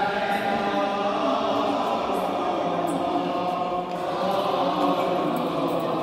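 Several voices of a Coptic Orthodox procession chanting a hymn together, in long held notes that shift slowly in pitch.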